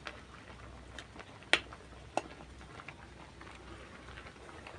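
A cooking utensil knocking against a pot a few times, the two loudest knocks about a second and a half and two seconds in, over a faint simmering boil.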